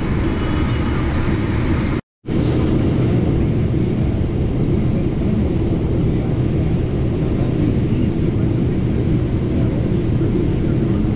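Case IH 2388 combine running under load, heard from inside the cab: a steady low machinery rumble of engine and threshing, with the unloading auger running into a grain cart. The sound cuts out for a moment about two seconds in.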